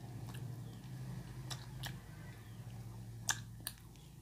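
Quiet sounds of eating by hand from steel bowls: about five short, sharp clicks and smacks, the loudest a little past three seconds in, over a low steady hum.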